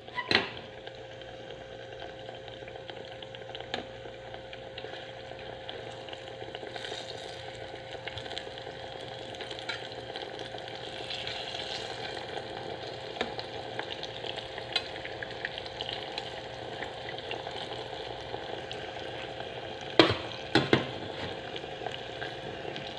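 Banana halves sizzling and crackling steadily in hot oil in a small electric cooking pot, as a fork turns them. There is a sharp clack just after the start and two more near the end, as the fork knocks against the pot.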